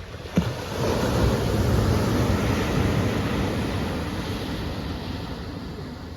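Ocean wave breaking and washing up the beach: a rush of surf that swells about a second in and slowly dies away. A single sharp knock comes just before it.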